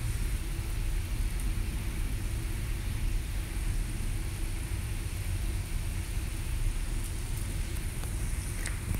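Steady low rumble with a faint hum and hiss: the constant background noise of an indoor aquarium exhibit, with pumps and water running into the turtle pool.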